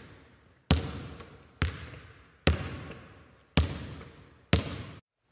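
A basketball bouncing on a hard floor, five echoing bounces about a second apart, each dying away before the next.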